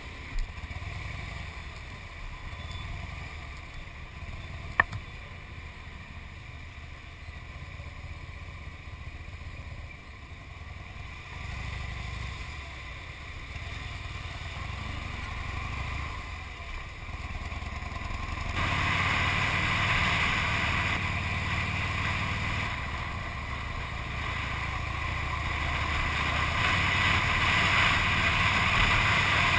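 Harley-Davidson V-twin motorcycle engine running at low speed in traffic. About two-thirds of the way through, a loud wind rush on the microphone joins it as the bike picks up speed. There is one sharp click about five seconds in.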